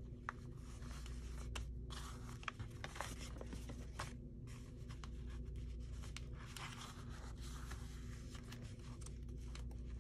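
Paper being handled and rubbed on a work table: scratchy rustling strokes and a few light clicks, over a steady low hum.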